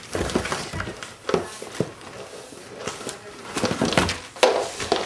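Cardboard box knocked, thumped and rustled from inside as a child moves about in it, in irregular bumps and scrapes with a few sharper knocks.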